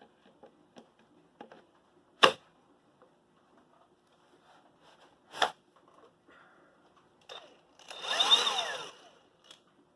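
Two sharp plastic clicks, then a Hercules HCB79B cordless band saw's motor runs for about a second, spinning up and winding back down, on a short pull of the trigger.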